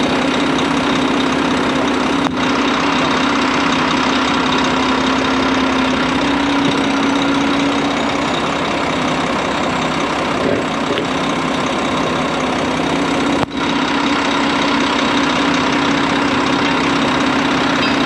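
Diesel engine of a truck-mounted concrete boom pump idling with a steady drone, dipping briefly twice.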